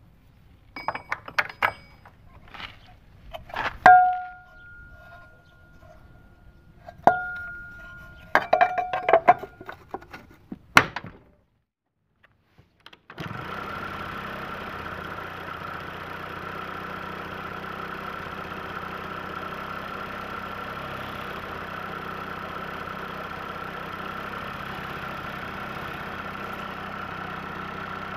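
Metal parts clink and knock as they are handled, two strikes ringing briefly, over the first ten seconds. About thirteen seconds in, the Honda Pal scooter's small two-stroke engine comes in abruptly and idles steadily.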